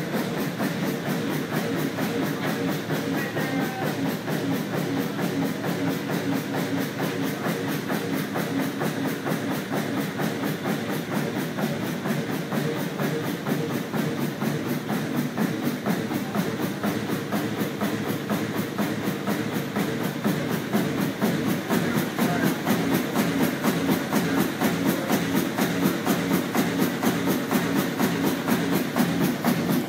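Large Fairbanks stationary power-plant engine running steadily with a rapid, even mechanical beat, a little louder in the last third.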